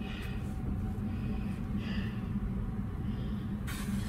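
Washing machine running with a steady low hum, and a short hiss near the end.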